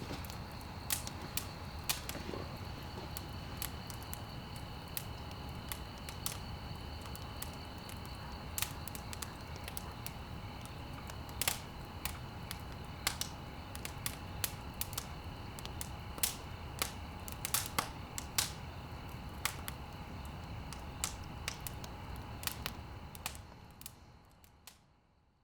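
Campfire crackling: irregular sharp snaps and pops over a steady low rumble of burning, fading out near the end.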